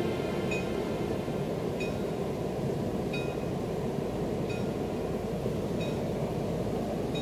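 A steady low rumble with a short, high, chime-like ping repeating about every 1.3 seconds, six times in all.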